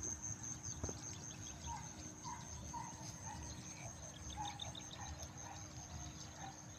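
Faint rice-field ambience: insects keep up a steady high-pitched drone, with a run of short, soft chirps through the middle and a low rumble underneath.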